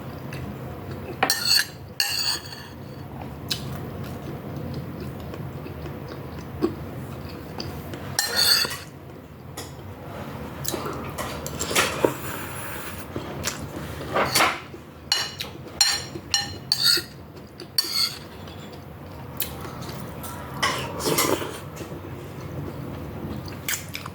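Metal cutlery clinking and scraping against a dish while eating, in irregular short strokes, some ringing briefly.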